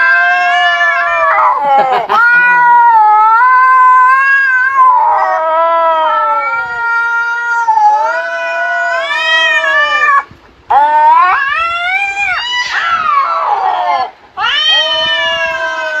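Recorded cat yowls and meows played through a phone's speaker: long, drawn-out caterwauling calls that bend up and down in pitch, almost without pause, with two short breaks in the last third.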